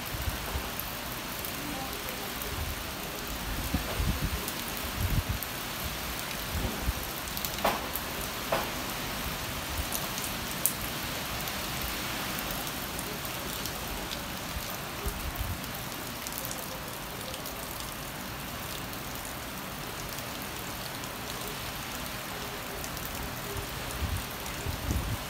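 Steady rain from a hurricane falling on trees, plants and the ground, as an even hiss. A few low thumps come in the first few seconds and again near the end.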